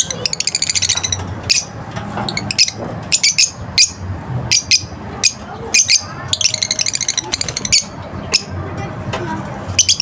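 Caged lovebirds chattering: sharp high chirps throughout, with rapid trills of chirps near the start and again about six to eight seconds in.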